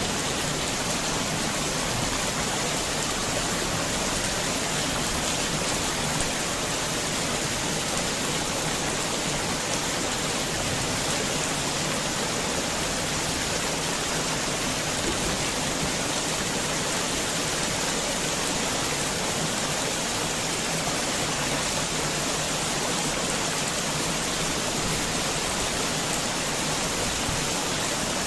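Heavy rain falling steadily, a dense even hiss with no thunder or distinct drops standing out.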